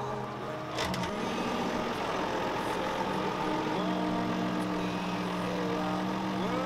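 CLAAS Ares 656 RZ tractor's diesel engine running at idle, with a sharp knock about a second in and its note stepping up slightly about four seconds in.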